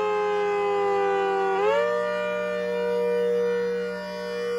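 ACA Hurricane 130 rotating siren, supercharged by a Roots blower, sounding a continuous wail with many overtones. Its pitch sags slightly, then jumps up about a second and a half in and holds steady. The sound swells and fades as the horn turns.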